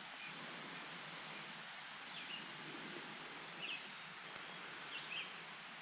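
Birds chirping a handful of short, high calls over a steady rush of flowing creek water.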